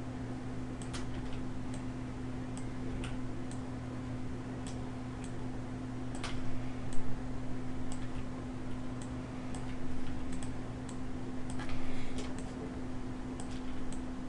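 Irregular clicks of a computer mouse and keyboard as the user works, over a steady low hum.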